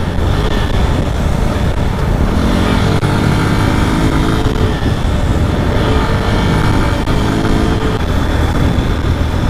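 Heavy wind buffeting on the microphone of a moving motorcycle, a steady low rumble. Beneath it, a motorcycle engine hums, its note coming through a couple of times as the bike pulls along.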